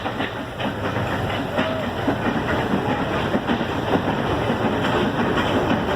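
Ooty toy train running, with a steady rumble and a continual rattle and clicking of wheels over the rails.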